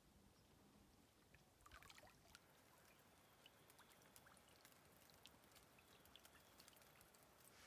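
Very faint drips of rain in the forest: scattered light ticks over a soft hiss, with a small cluster of them about two seconds in.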